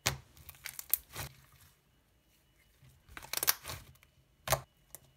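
White butter slime with black glitter squeezed and stretched by hand, making short, uneven clicks in three bouts: near the start, around three seconds in, and once more near the end.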